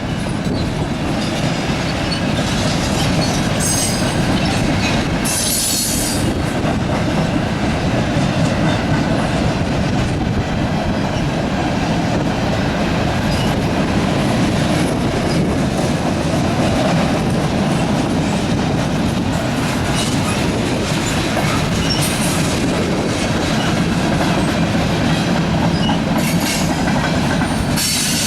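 Freight train cars rolling past close by: a steady, loud rumble with the clatter of wheels on the rails. A few brief high-pitched squeals of the wheels come about four and six seconds in, and again near the end.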